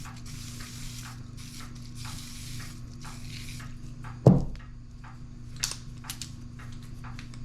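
Several short hissing bursts from a WD-40 aerosol can sprayed onto a rusted maple tubing tool. A loud thump comes about four seconds in, followed by a few sharp metallic clicks as the stiff tool is worked to free its rust-seized pivot.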